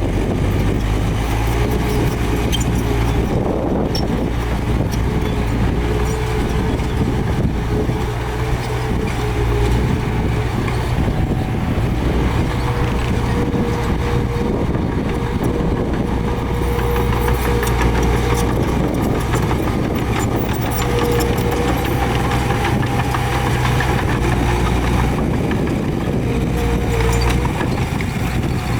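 Diesel engine of heavy earthmoving machinery running steadily, a low engine drone with a higher whine above it.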